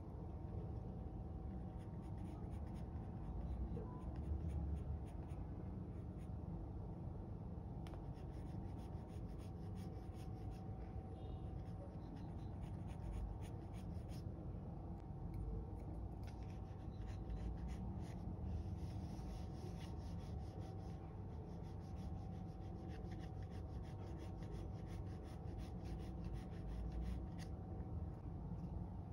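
Graphite pencil (Pitt Graphite Matt) scratching on drawing paper in runs of many quick, short strokes, with short pauses between runs, over a steady low hum. The strokes thin out near the end.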